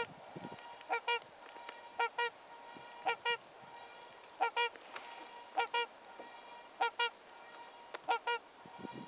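Trumpeter swans calling: short, horn-like honks, mostly in pairs, repeating about once a second.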